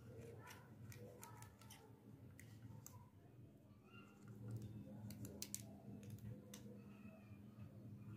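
Faint clicks and light rustles as fingers handle a small plastic toy fridge and the wrapped candies inside it, over a low steady hum.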